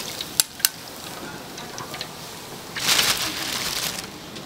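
Handmade Korean twigim (battered fritters) sizzling in hot deep-frying oil, with a louder surge of sizzling about three seconds in. Two sharp clicks near the start.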